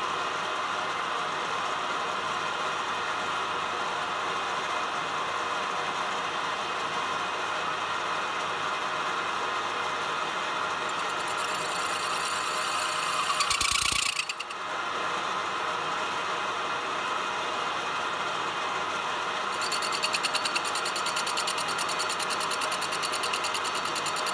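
Metal lathe running, its spindle turning a starter ring gear while a turning tool faces it down. A fast, high rasping chatter from the cut comes in about halfway through, swells into a brief louder burst, then returns steadily for the last few seconds.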